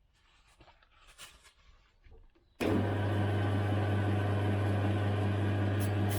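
A few quiet handling clicks, then about two and a half seconds in a small electric lathe is switched on and runs at steady speed with a loud even hum, ready for sanding a freshly de-rusted part.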